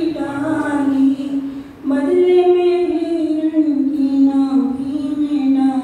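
A woman singing a Hindi devotional bhajan solo, in long held notes that slide gently in pitch, with a short breath about two seconds in.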